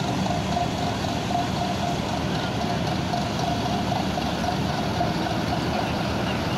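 Diesel engine of an intercity coach running as the bus pulls slowly away, with a steady even sound and a faint steady whine on top.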